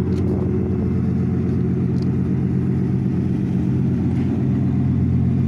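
2018 Ford F-150's engine idling steadily through a straight-piped exhaust with no mufflers or catalytic converters. It gives a low, steady, aggressive exhaust note.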